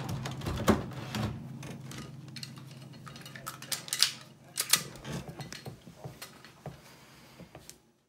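Clicks, knocks and light rattles of small hard objects being handled and set down, with the sharpest clicks about a second in and twice more around the middle. A steady low hum runs underneath.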